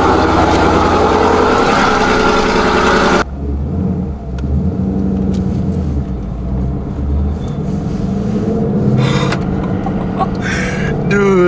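2015 Ford Mustang GT's 5.0-litre V8 running loudly. About three seconds in the sound cuts abruptly to a quieter, steady engine drone heard from inside the cabin while driving, its pitch shifting slightly with the throttle.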